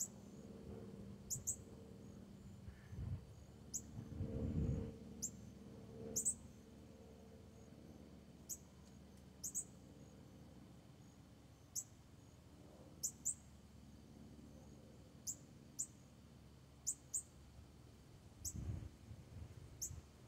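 Northern cardinal giving sharp, high chip calls, one or two at a time every second or so, each a quick downward-sweeping note.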